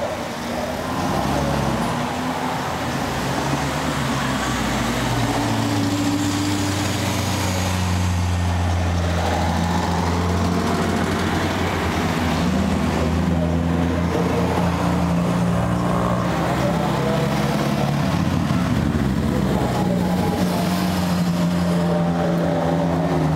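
Classic cars driving slowly past one after another in a parade, their engines running with a steady low hum.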